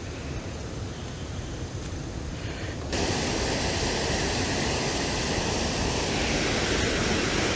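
Steady rushing noise of flowing water, faint at first, then jumping abruptly to a louder, fuller rush about three seconds in.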